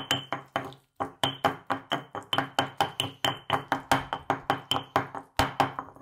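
Stone pestle pounding and mashing avocado in a stone mortar: a quick series of knocks, about four a second, each with a short ring from the stone, with a brief pause about a second in.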